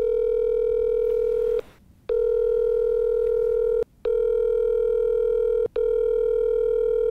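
Steady mid-pitched electronic tone, sounding in stretches of about two seconds broken by three short gaps.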